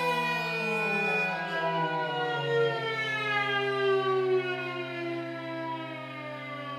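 Violin and cor anglais playing contemporary music, their tones sliding slowly down in pitch together over a held low note. The piece passes the instruments through a real-time speed shifter that warps each part.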